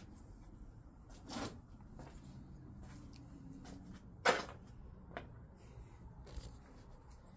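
A few faint knocks and scuffs, with one sharp click about four seconds in that is the loudest sound.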